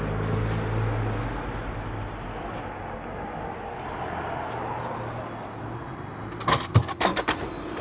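Food vending machine dispensing a selected item: a steady mechanical hum that is strongest at first and then fades, followed near the end by a quick cluster of sharp knocks and rattles as the package comes out.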